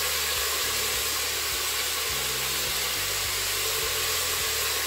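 Chicken pieces sizzling in the hot inner pot of a Crockpot Express pressure cooker after browning, a steady even hiss.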